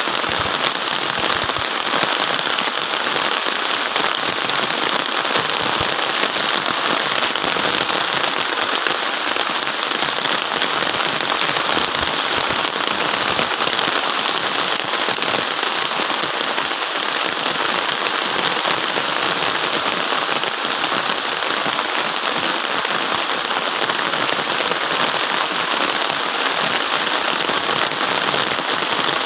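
Steady rain falling, a dense even hiss with a fine crackle of drops.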